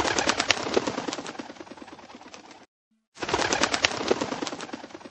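Bird's wings flapping, a rapid fluttering clatter heard twice. Each run starts loud and fades out over about two and a half seconds, with a short silent break about halfway through.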